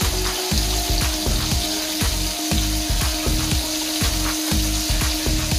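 Food frying in a pan on the stove: a steady sizzle with small crackles, over a steady low hum.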